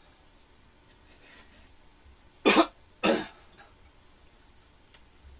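A person coughing twice, two short harsh coughs about half a second apart, roughly halfway through.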